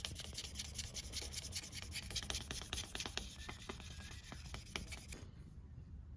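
Rapid, irregular scraping strokes of a steel knife blade being worked by hand against an abrasive. The strokes stop about five seconds in.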